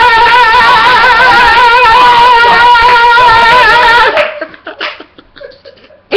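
A man's voice belting one long, high held note with a wide, wobbling vibrato, a deliberately overdone gospel-hymn finish. It cuts off suddenly about four seconds in, leaving a few soft knocks and rustles.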